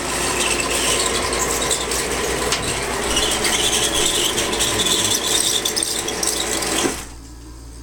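O gauge model train running around its track with a long string of cars, a steady mechanical rattle of many small clicks. It stops suddenly about seven seconds in.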